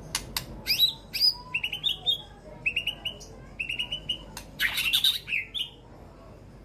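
White-rumped shama (murai batu) singing: a couple of sharp clicks, quick upswept whistles, then three runs of short rapid repeated notes and a harsh, noisy call about five seconds in.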